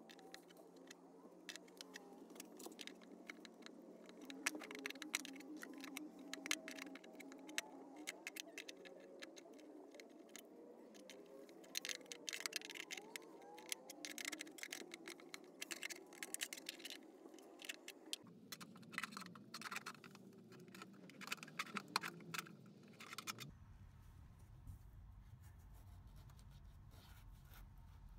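Straight aviation snips cutting through a van's sheet-steel floor: a run of short, sharp, irregular metal clicks and crunches as the blades bite and the cut is widened.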